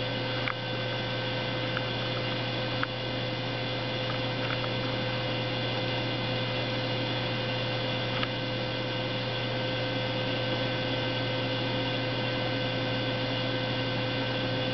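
Steady machinery hum from the hydraulic load-test system, with a constant mid-pitched tone over it and a few faint ticks.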